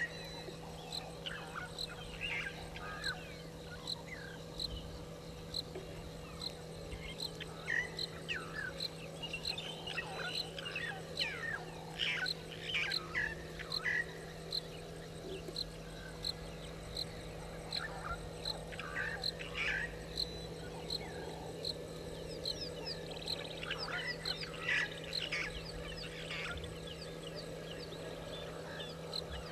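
Outdoor wildlife chorus of many short chirping calls from frogs and birds, over a faint high tick repeating about twice a second and a steady low hum.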